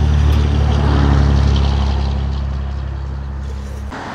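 A loud, steady engine hum, loudest about a second in, fading, then cutting off abruptly near the end.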